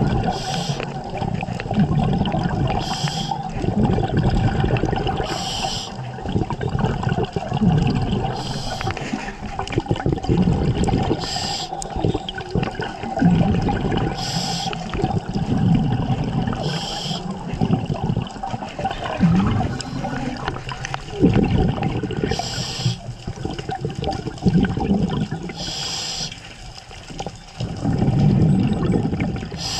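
Scuba diver breathing through a regulator underwater: a short hissing inhalation every two to three seconds, each followed by a rumbling, gurgling burst of exhaled bubbles. A faint steady hum runs underneath.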